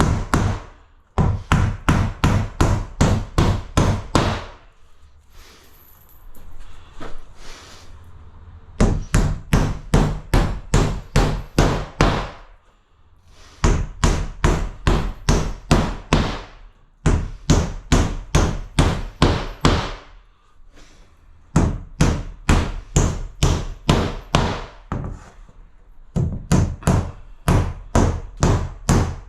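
Claw hammer driving clouts through fibre cement sheet into timber studs: runs of about ten quick, even strikes, roughly three a second, with short pauses between nails.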